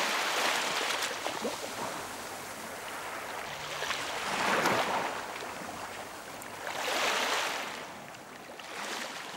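Small waves washing onto a beach, the surf swelling and fading in slow surges every few seconds.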